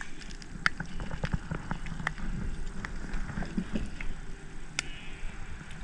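Scattered light clicks and taps of a spinning rod and reel being worked as a small fish is reeled in and swung up to a kayak, over a faint low rumble.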